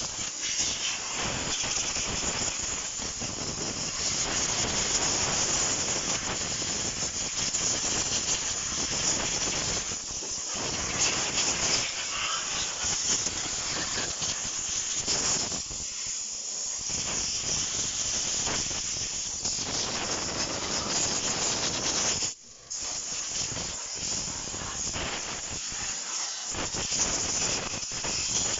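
Compressed-air blow gun hissing loudly as it blows water off a freshly washed engine bay. The blast eases off a couple of times and stops for a moment about three-quarters of the way through before starting again.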